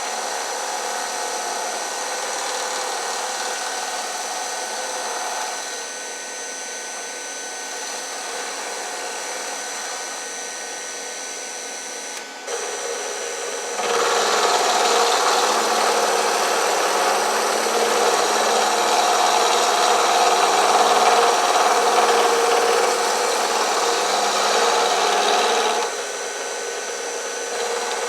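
Milling machine running with an end mill cutting metal, a steady machine whine with grinding cutting noise; it grows clearly louder about halfway through and drops back shortly before the end.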